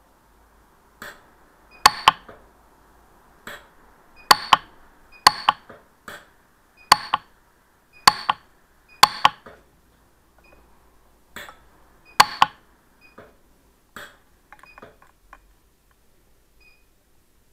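PUK 3S pulse-arc micro welder firing weld pulses, each a sharp snap, coming irregularly about once a second and several in quick pairs. Each pulse fuses 18ct gold filler wire onto a diamond's rubover setting to build it up.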